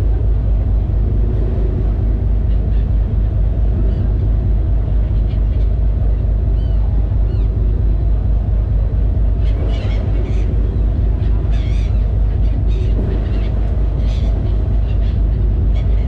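Steady low drone of a passenger ferry's engine. Short high calls come in a scattered cluster about ten seconds in.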